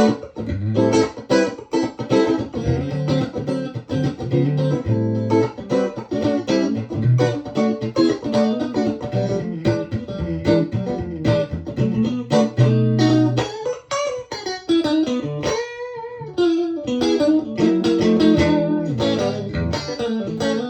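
Electric guitar played through a Victoria 35310 tweed Bandmaster-clone tube amp with three Jensen P10R speakers, running its stock 12AY7 in V1. The guitar's volume knob is rolled back to 7, which gives a mostly clean, touch-sensitive tone. The riff is a run of picked notes and chords, with a bent note about three quarters of the way through.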